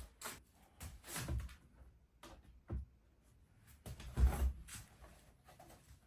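Wooden window-frame trim being handled and fitted: a string of short, irregular knocks and scrapes with quiet gaps between them.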